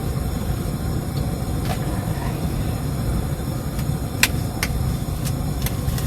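Disposable food preparation gloves being pulled on, giving a few sharp clicks and snaps, most of them in the second half, over a steady low background rumble.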